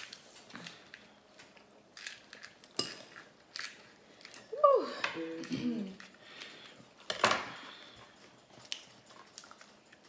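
Scattered clicks and clinks of cutlery and dishes as people eat at a table, with a short vocal sound about halfway through.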